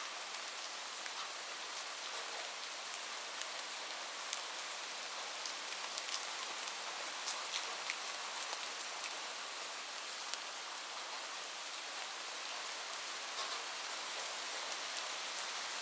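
Steady rain falling on a roof: a dense, even hiss with scattered sharp ticks of individual drops.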